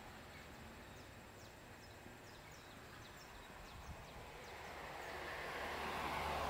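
A car passing on the street, its engine and tyre noise swelling toward the end. Under it, in the first few seconds, are faint, high, quick chirps from small birds.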